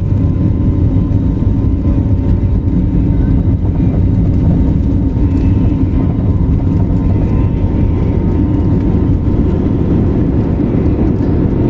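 Airplane engines running at takeoff: a loud, steady low rumble with a faint high whine.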